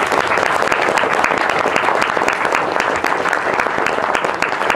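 A large audience applauding, a dense, steady clapping of many hands.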